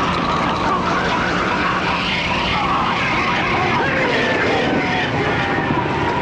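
A man screaming in agony with a wavering, strained cry, over a loud, steady, hissing rush: a film's sound effects for a body melting down.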